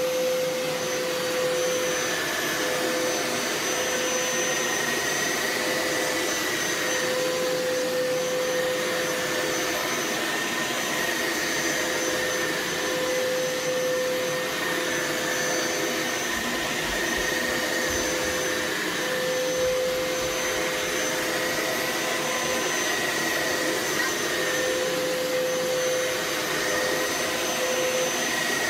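Hoover Power Scrub Elite Pet (FH50251) carpet cleaner running steadily on a rinse pass over carpet, its suction motor giving a continuous whine that wavers slightly in pitch.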